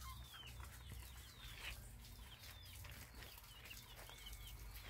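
Faint cheeping of young chickens: a handful of short, high calls spread through, over a low steady rumble.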